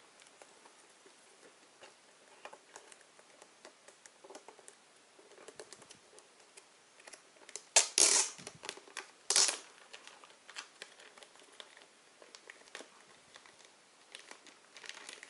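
Clear plastic wrap being peeled and torn off a boxed CD case by hand: quiet crinkling and small clicks, with two louder rips about a second and a half apart past the middle.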